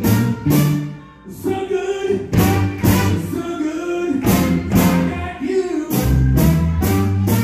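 Live blues band playing: saxophone and trumpet over electric guitars, keyboard, bass and a drum kit with regular cymbal strokes, with a brief drop in loudness about a second in.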